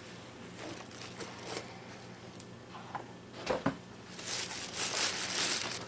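Handling of the packaging in the box: a few light clicks and a knock, then rustling and crinkling of wrapping from a little past the middle as the silver play button is unwrapped.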